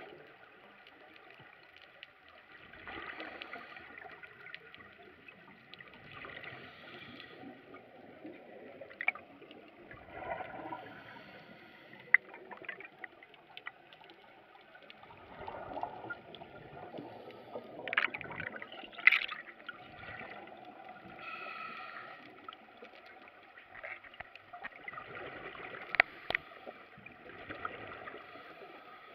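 Scuba breathing underwater through a regulator: gurgling bursts of exhaled bubbles every three to four seconds, with a few sharp clicks.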